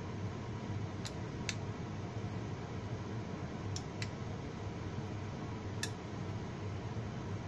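Metal spoon clinking lightly against a ceramic bowl five times as gravy is scooped out and poured, over a steady background hum.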